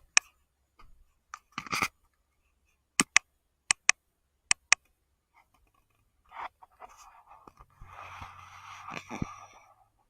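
Handling noise: three pairs of sharp clicks, then a few seconds of rustling and scraping.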